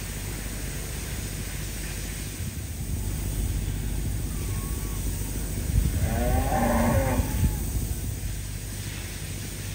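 A cow moos once, about six seconds in, a single call lasting about a second and a half, over a low steady rumble.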